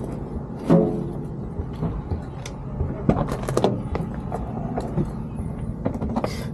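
Handling sounds at a pickup truck over a steady low hum: a bump about a second in as a bag is dropped into the bed, a few light clicks and knocks in the middle, and the door latch clicking as the cab door is opened near the end.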